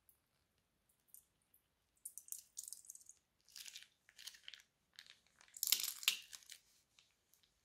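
Slime being squeezed out of a plastic piping bag, with crunchy, crinkling crackles in clusters starting about two seconds in and loudest near the end.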